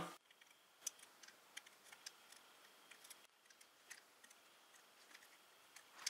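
Near silence with faint, scattered light ticks as wires are worked loose from a circuit board's solder joints with a soldering iron.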